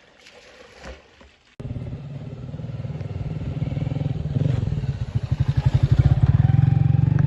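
A small vehicle engine running close by, its exhaust pulsing steadily and growing louder and faster, as if picking up speed. It starts abruptly about a second and a half in, after a quiet stretch.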